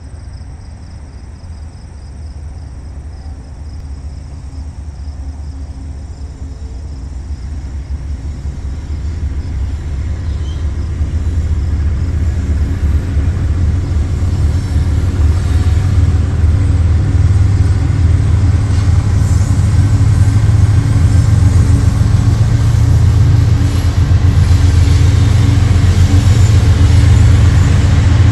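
Canadian Pacific diesel-electric freight locomotives approaching and drawing level, a low engine rumble that grows steadily louder, with a steady low engine tone coming in about halfway through.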